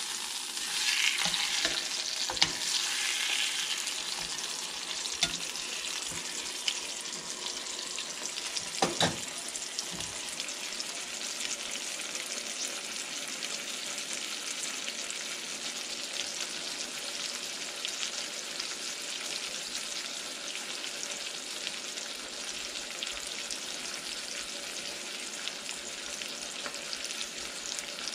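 Ribeye steak sizzling in olive oil in a stainless steel skillet, just flipped. The sizzle is loudest for the first few seconds and then settles to a steady hiss. A few sharp clinks of metal tongs against the pan come in the first ten seconds.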